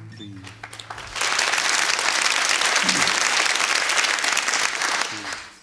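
Live audience applauding. A guitar chord rings out at the start, then the clapping swells about a second in, holds steady and dies away near the end.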